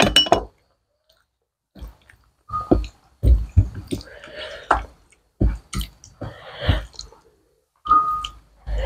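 Close-miked eating sounds: chewing and the wet squish of rice and curry mixed by hand, in separate short bursts, with a few sharp clicks at the start.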